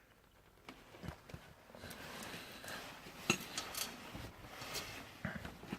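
Faint clicks and light metallic clinks of small parts and tools being handled, with a low rustle of movement.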